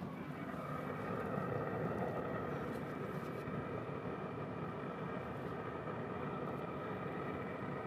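Steady whirring hum of a Traeger Ranger pellet grill's fan running with the lid open, with a few faint steady whining tones over an even rush of air.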